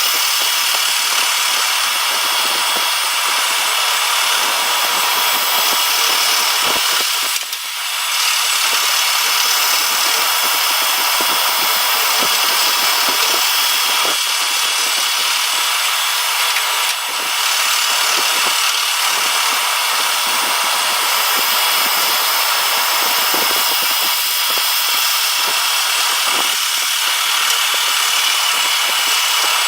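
Power tool running steadily on the cast-iron vise, a dense high-pitched hiss and whine that dips briefly about seven seconds in and again around seventeen seconds.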